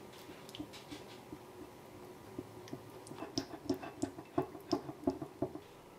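A whisk stirring chocolate batter in a glass bowl, its wires clicking against the glass. The strokes are light at first. About halfway through they get louder and more regular, at about four taps a second, then stop shortly before the end.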